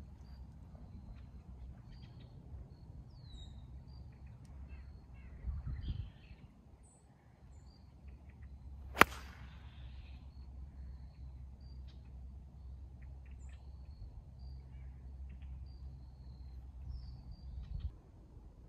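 A 6-iron striking a golf ball off the tee: one sharp click about nine seconds in, the loudest sound. Faint bird chirps sound in the background.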